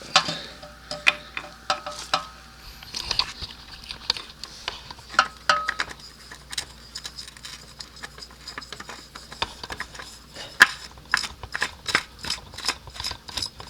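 Scattered light metal clinks and taps, some with a short ring, from tools and parts being handled while the new oil filter is set in place.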